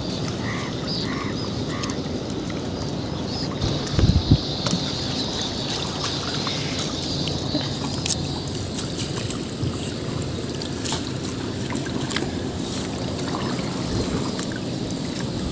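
Small boat being paddled through shallow flood water: steady water noise with scattered small knocks against the hull and a louder thump about four seconds in.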